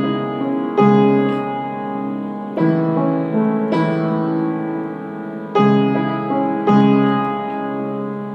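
Piano playing a slow instrumental passage: full chords struck about every one to two seconds, each left to ring and fade.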